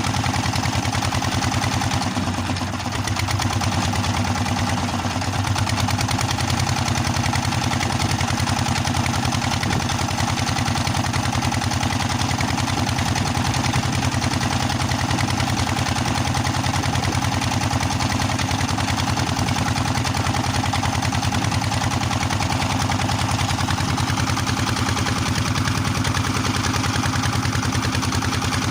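Small fishing boat's engine running steadily with an even, rapid beat, dipping briefly about two seconds in.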